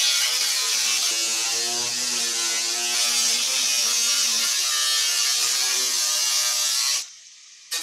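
Angle grinder with a thin cut-off disc cutting into a steel panel to get at a weld: a steady motor whine with the hiss of the disc biting the metal. It cuts off abruptly about seven seconds in.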